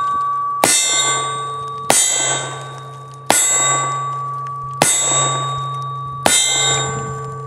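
A Ruger Security Six revolver fired five times in slow double action, about one and a half seconds apart. Each shot is followed by a metallic ringing that lasts until the next one.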